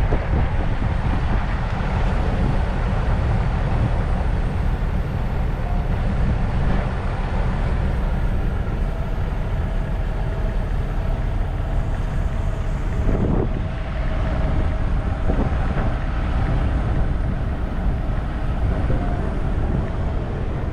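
Steady low rumble of running vehicles, with wind noise on the microphone.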